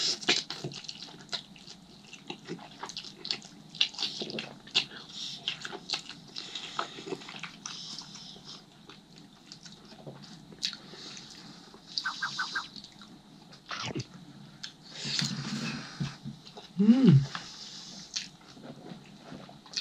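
Close-miked eating: a person slurping and chewing glass noodles and braised chicken, with wet mouth sounds and light clicks of chopsticks and spoon against the plastic container. About three seconds before the end comes a short hummed 'mm', the loudest sound.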